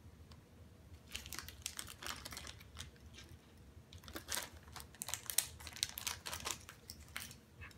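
Small screws and a little screwdriver being handled and put into a small bag: scattered light clicks with rustling of the bag.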